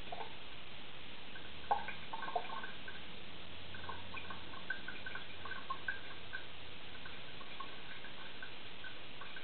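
Scattered small wet clicks and ticks of a knife blade being worked on a wet Japanese natural sharpening stone, over a steady hiss, with a few sharper taps in the first couple of seconds.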